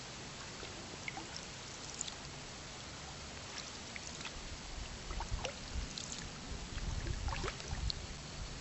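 Canoe being paddled: water trickling and dripping in small scattered splashes. From about halfway in, low rumbling knocks and surges grow louder.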